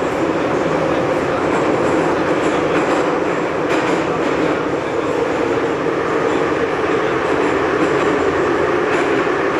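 Metro train running through a tunnel, heard from inside the passenger car: a loud, steady roar of wheels on rail and running gear, with a few faint clicks.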